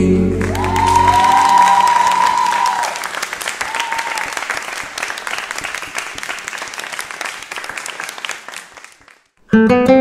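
Audience applauding as a song's last notes die away, the clapping gradually thinning and fading out. Strummed acoustic guitar chords start abruptly just before the end.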